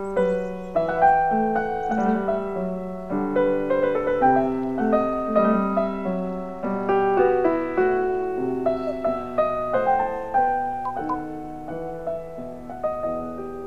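Background piano music, a steady flow of single notes and chords.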